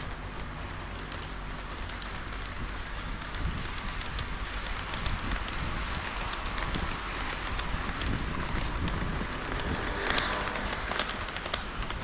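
HO-scale model trains rolling along the track: a steady rumble of wheels and motors with many small clicks of wheels over rail joints. It gets busier from about three seconds in and is loudest near the end.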